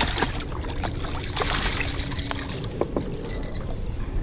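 A hooked jack crevalle thrashing and splashing at the water's surface beside a boat as it is grabbed by hand and lifted aboard. There are several short splashes over a steady low rumble.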